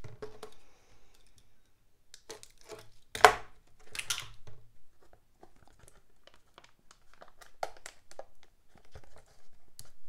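Clear plastic packing tape crinkling and rasping as it is pulled from the roll and pressed onto a foam board, with two louder rasps about three and four seconds in amid small crinkles and taps.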